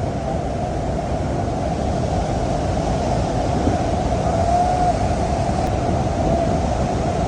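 Niagara Falls waterfall close by: a steady, dense rush of heavy falling water, growing a little louder over the first couple of seconds.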